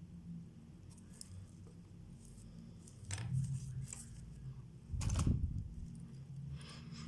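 Small hand tools and parts of a wristwatch being handled on a bench: a few light scrapes and clicks, with a louder knock about five seconds in, over a low steady hum.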